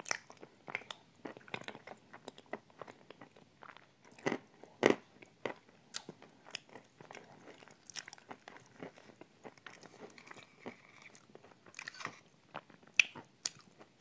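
Close-up chewing and wet mouth sounds of someone eating a creamy dessert, with many small sharp clicks and crunches and the metal spoon knocking and scraping in the glass. A few louder clicks stand out, the loudest about five seconds in and again near the end.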